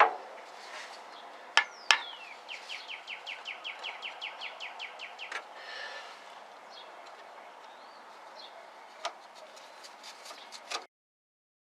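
Sharp clicks and knocks of hand tools as a fuel line is worked on, the loudest three in the first two seconds and a quicker run of lighter clicks near the end. In the background a bird gives a quick trill of about twenty short chirps, and the sound cuts off abruptly near the end.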